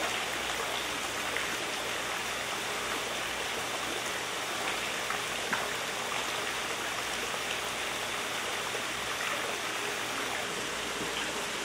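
Water gushing from an inlet pipe and splashing into a shrimp culture tank: a steady rushing splash that holds even throughout.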